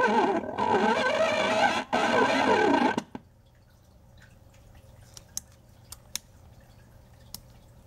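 Circuit-bent Fisher-Price Junior Asparagus Bedtime Buddy toy's sound chip putting out warbling, wavering electronic tones for about three seconds, then cutting off suddenly. A few faint clicks follow.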